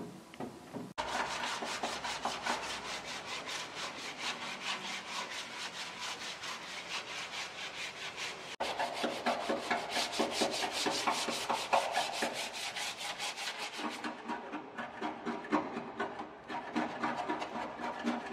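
Rapid, rhythmic back-and-forth rubbing strokes on a surface, like hand sanding, breaking off and resuming abruptly a few times.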